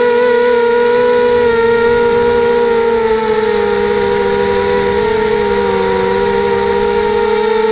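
QAV280 FPV quadcopter's brushless motors and propellers whining steadily in flight, heard close up through the onboard camera's microphone. The pitch sags slightly about three seconds in, with a thin high electronic whine held above it.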